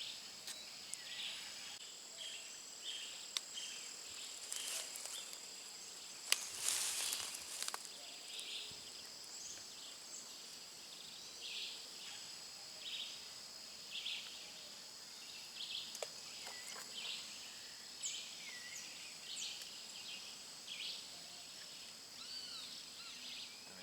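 Outdoor nature ambience: a steady high-pitched insect drone, with a short chirping call repeating about every second and a few bird calls. There is a brief rustling burst about seven seconds in.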